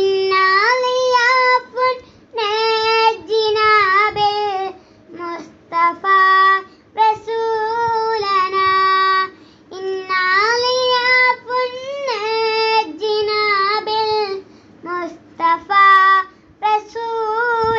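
A boy singing a Malayalam madh, a devotional song in praise of the Prophet, unaccompanied. He sings in phrases of one to two seconds, holding long notes with ornamented bends, with short breaths between them.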